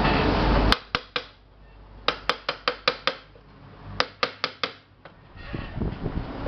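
Hammer striking a steel chisel set against the rim of an aluminium pressure cooker: about fifteen sharp metallic taps in three quick runs, reshaping the deformed pot. A steady background noise fills the first moment and builds again near the end.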